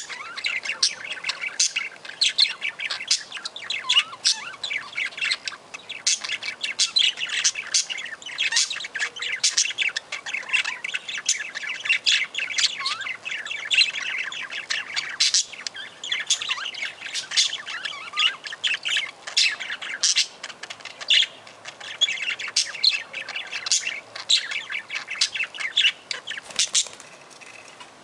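A flock of budgerigars chattering, a continuous stream of quick chirps, squawks and warbles that dies away just before the end.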